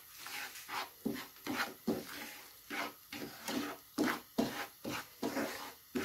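Wooden spoon stirring and scraping sugar through a thick halwa mixture in a non-stick frying pan, a rhythmic scrape about twice a second.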